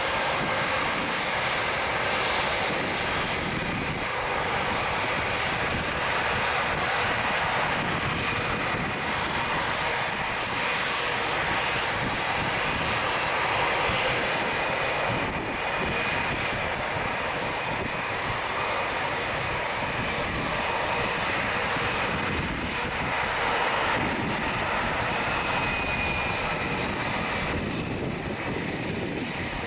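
Airbus A319CJ's IAE V2500 turbofan engines at taxi idle: a steady jet whine with faint high tones over a continuous rushing noise as the airliner taxis past.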